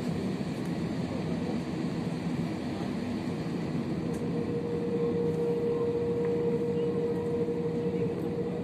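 Steady cabin noise inside an Airbus A320 on the ground: a low rumble of air-conditioning and aircraft machinery, with a steady mid-pitched hum that grows stronger about halfway through.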